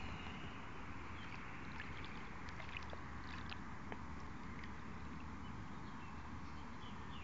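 Steady rushing noise with a few faint, short high clicks and chirps scattered through it.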